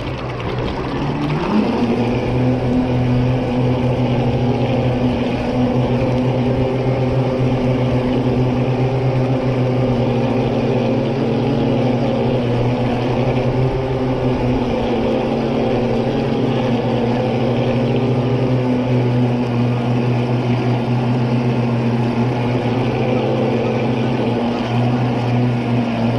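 RC boat's motor running, picked up by the bow-mounted camera: a steady hum that rises in pitch and loudness over the first two seconds as the boat speeds up, then holds at speed, with water noise from the hull.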